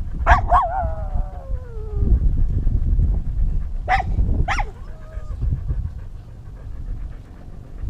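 Dog barking and calling close to a harness-mounted camera. Two sharp barks are followed by a long howl-like call that falls in pitch for over a second, and two more sharp barks come about four seconds in. Under them runs a steady low rumble of movement and wind on the microphone.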